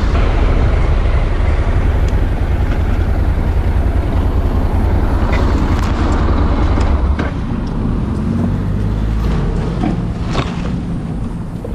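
Motorcycle riding noise on a helmet-mounted camera: steady low engine rumble mixed with wind on the microphone. About seven seconds in it drops to a quieter running engine, with a few short clicks and rustles as the bike brushes into tree branches.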